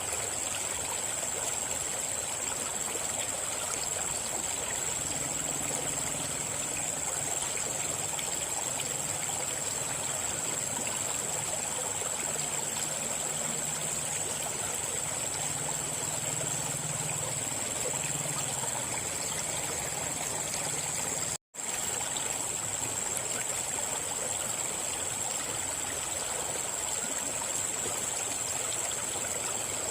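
River water flowing steadily, a continuous rushing and trickling. The sound cuts out for a split second about two-thirds of the way through, then carries on unchanged.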